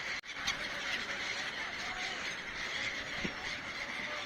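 Birds calling over a steady outdoor background hiss, with a brief drop in sound just after the start, like an edit cut.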